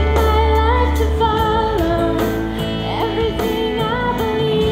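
A recorded song playing back from an audio editor: a singer holding long notes over instrumental backing with a steady bass line. It cuts in abruptly.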